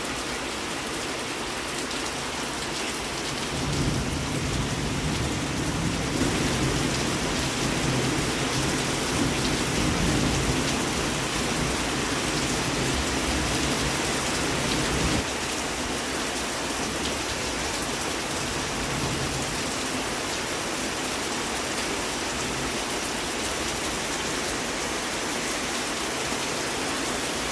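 Heavy rain falling steadily. A deep low rumble joins it from about four seconds in and stops suddenly about fifteen seconds in.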